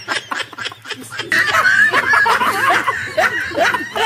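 Several young men laughing together, getting louder about a second in.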